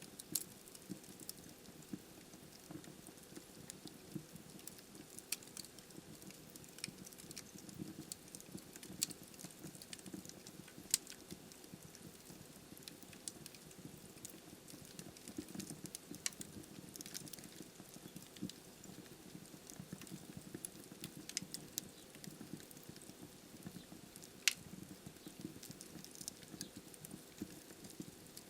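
Wood fire crackling in a fireplace: irregular sharp snaps and pops, a few louder than the rest, over a soft low hiss of burning logs.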